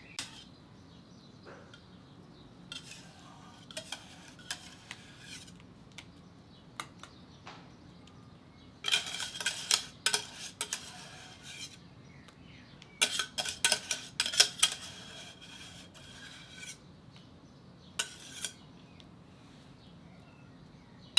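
A kitchen utensil scraping and clinking against a cooking pot and a glass dish as thick lemon curd is transferred. Two busier stretches of sharp ringing clinks and scrapes, one about halfway through and a longer one a few seconds later, with lighter knocks in between.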